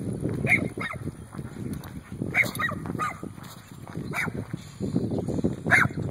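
Footsteps on an asphalt road as a person walks a Doberman on a leash, with short irregular sounds from the dog about once a second.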